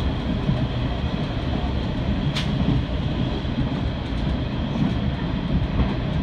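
Running noise of a Hanshin Main Line limited express train heard from inside the front car: a steady rumble of the wheels on the rails, with one sharp click about two seconds in.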